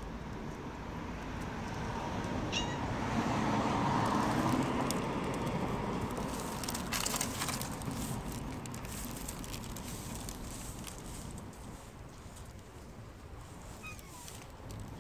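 A stray cat meowing over a steady background noise that swells and fades around the middle.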